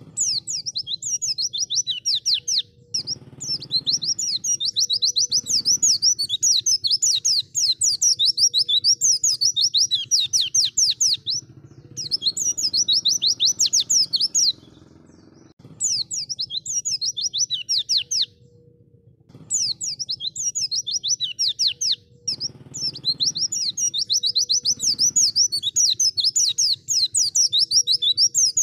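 White-eye (pleci) singing: long phrases of rapid, high chirping trills, broken by short pauses every few seconds.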